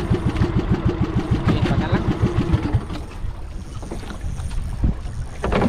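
Small boat motor running at trolling speed, a fast even low pulsing, that cuts off about three seconds in. A couple of short knocks follow near the end.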